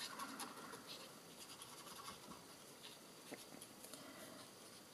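Faint scratching of a blender pen's tip rubbed in short strokes over stamped cardstock, blending the ink.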